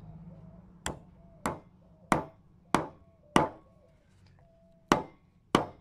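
Hammer striking a wood chisel, chopping out the waste between saw cuts to notch a wooden stair stringer. There are five sharp blows about half a second apart, a short pause, then two more.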